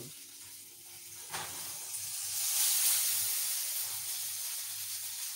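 Grilled tomato halves in olive oil sizzling and hissing on a hot oven tray as it comes out of the oven. The hiss starts about a second in and swells to its loudest midway before easing off.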